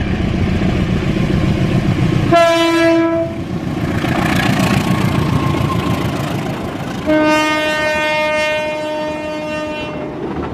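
Diesel locomotive horn over the running train: a short blast about two seconds in, then a longer one about seven seconds in that lasts about three seconds. Between the blasts there is the rumble and rail noise of the passenger train passing.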